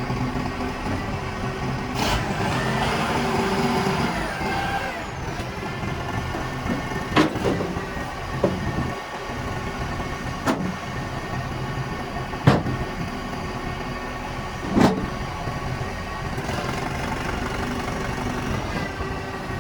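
Self-loading concrete mixer truck's engine running steadily, with a whine that rises and falls between about two and five seconds in. Several sharp metallic clanks come at irregular intervals, about five in all.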